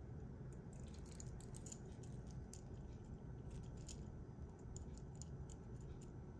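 Faint, scattered clinking of a stainless steel link watch bracelet as the watch is handled and turned over, a run of light clicks over a steady low background hiss.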